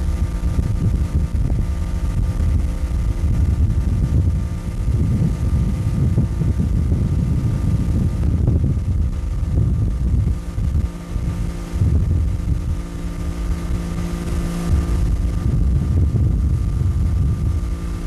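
A 75 hp Chrysler outboard motor runs steadily at towing speed, heard from aboard the boat, with wind buffeting the microphone.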